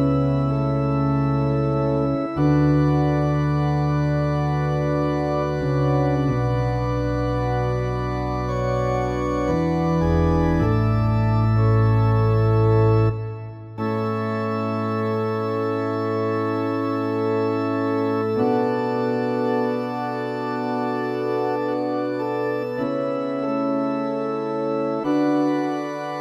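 Organ playing the accompaniment to a responsorial psalm, without singing: held chords that change every few seconds. About halfway through it breaks off briefly, then goes on with a thinner, higher sound and little deep bass.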